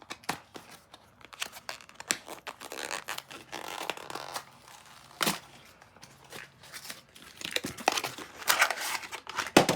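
A Beyblade launcher's package being opened by hand: cardboard and plastic tearing and crinkling, with scattered clicks and a sharp snap about five seconds in. The rustling is busiest near the end.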